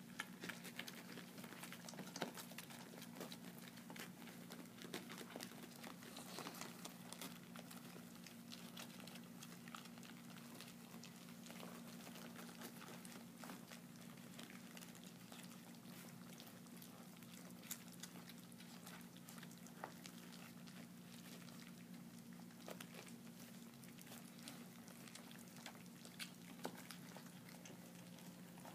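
A litter of German shepherd puppies eating together: faint, scattered wet smacking and lapping clicks, over a steady low hum.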